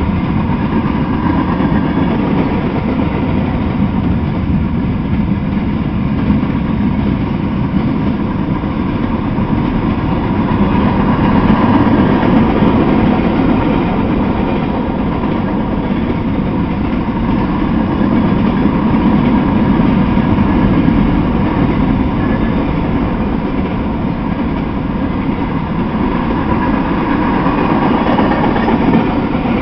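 Freight train of tank cars, hoppers and boxcars rolling past at a steady pace: a continuous loud rumble of steel wheels on rail, swelling a little about twelve seconds in and again near the end.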